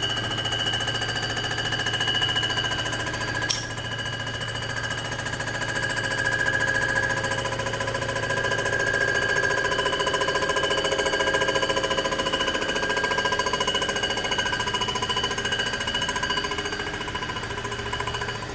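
Cylinder-head surfacing machine running a milling pass across a cast-iron Rambler 327 head, a steady whine of several tones over a fast chatter from the cutter. There is a single sharp click about three and a half seconds in.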